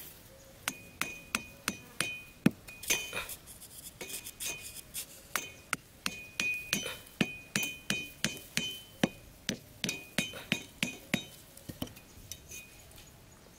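Light metallic clicks and clinks, each with a brief ring, coming irregularly two or three a second with a short pause a few seconds in: bamboo sticks knocking against the metal hacksaw frame of a trap as it is set.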